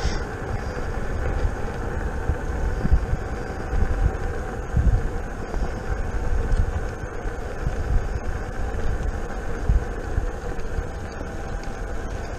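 Riding a King Song S18 electric unicycle along an asphalt path: wind buffets the microphone in gusty low rumbles over steady tyre noise. A faint, steady whine from the unicycle's hub motor runs underneath.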